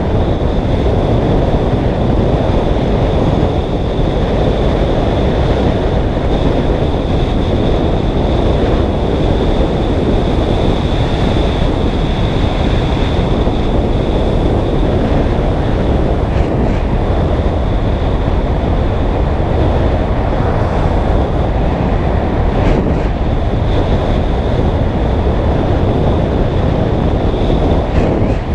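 Loud wind rushing over the microphone on a triathlon bike descending at speed, with a steady high-pitched whine under it and a few faint knocks.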